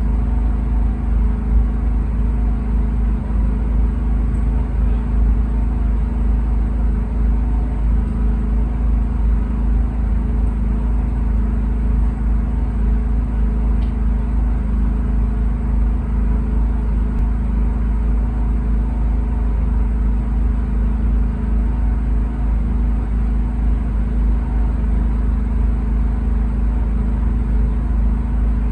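Steady, loud low rumble of a motor vehicle running, even throughout with no rise or fall in pitch.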